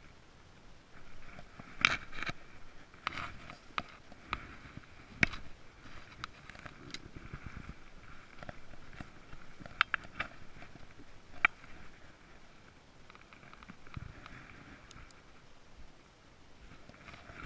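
Footsteps through grass and dry brush, with irregular sharp snaps and crackles of twigs and branches underfoot.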